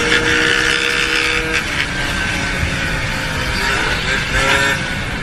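A motor vehicle's engine running under steady road and wind noise, with a faint engine tone rising and falling about four and a half seconds in.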